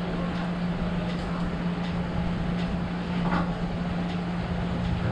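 A steady low mechanical hum over street background noise, with a few faint light clicks.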